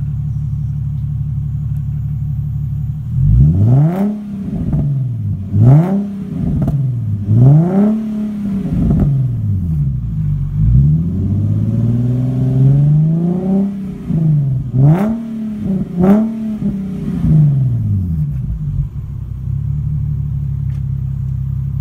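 Infiniti G37's 3.7-litre V6 through a Manzo axle-back exhaust, idling and then revved in a string of quick blips with one longer, slower rev in the middle. It settles back to a steady idle near the end.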